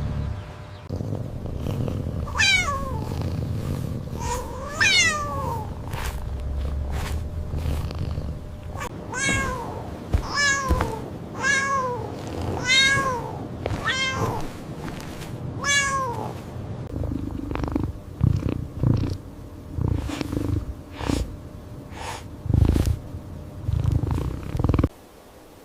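A cat meowing again and again, high cries that rise and fall in pitch. There are two cries early on and then a quick run of about six, over a low purr. The last third holds softer low rustles and thumps.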